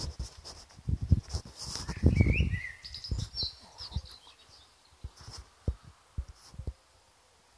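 Birds chirping a few short twittering calls in the first half, over scattered low knocks and thumps that are loudest about two seconds in.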